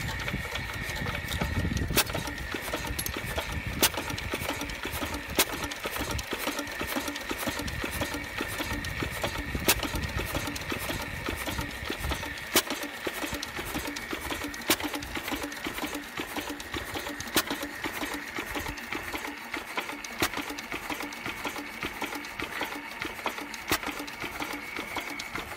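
Field Marshal 8 HP single-cylinder diesel stationary engine running, a fast steady mechanical beat with a sharp click about every two seconds.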